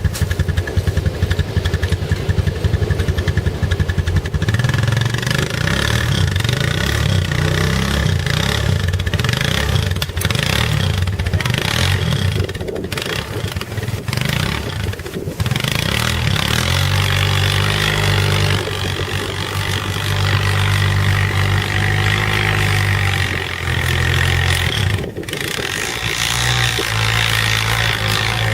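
Four-wheeler (ATV) engine running through deep snow: a rapid, even putter for the first few seconds, then the revs rise and fall several times as it works under load.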